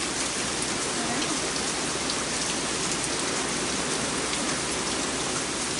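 Heavy rain pouring down steadily, an even hiss with scattered drop ticks.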